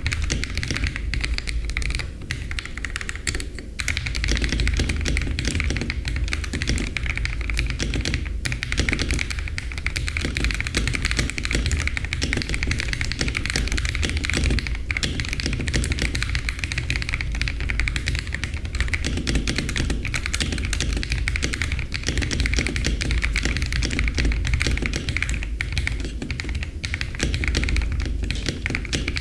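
Continuous fast typing on a Feker IK75 mechanical keyboard with hand-lubed Gateron Yellow linear switches, a polycarbonate plate and PBT keycaps: a dense, unbroken run of key clacks.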